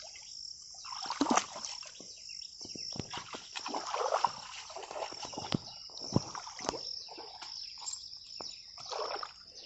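Wet mud and water sloshing and splashing in irregular bursts as a bull drags a plough through a flooded paddy field, over a constant high-pitched drone.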